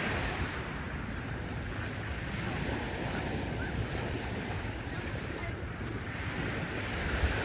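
Steady surf washing onto a sandy beach, with wind buffeting the microphone.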